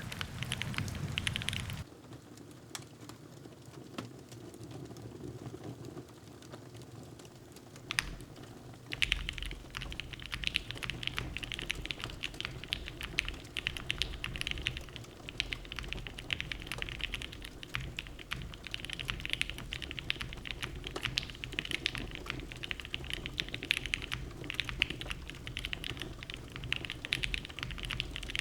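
Typing on a Geon.works F1-8X mechanical keyboard with Gateron Black Ink v2 linear switches: a quick run of keystrokes, then several seconds of sparse single key presses, then steady fast typing from about nine seconds in.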